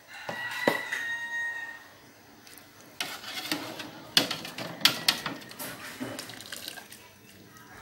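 A wire mesh skimmer knocking and scraping against a large aluminium stockpot while blanched chicken thighs are scooped out of the water, with splashing and dripping. A short high ring sounds near the start, and the sharpest knocks come in the middle.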